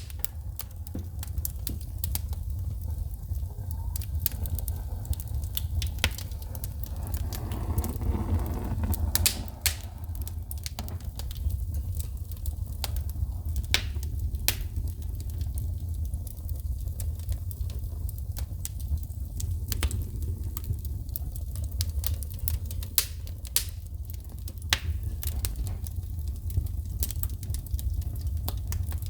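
Wood fire in a fireplace crackling, with irregular sharp pops of sparks over a steady low rumble. About a quarter of the way through, a louder rushing swell rises for a couple of seconds.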